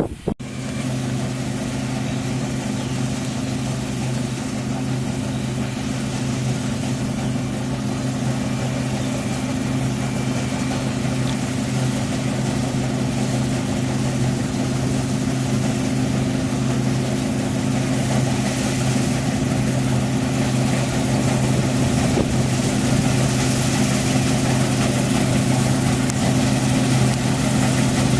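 New Holland CX8070 combine harvester running, a steady engine drone that holds one pitch throughout.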